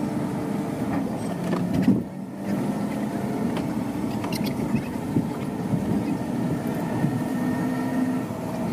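Engine and road noise heard inside a passenger vehicle's cabin as it drives, a steady hum whose pitch drifts slightly. A single thump comes about two seconds in.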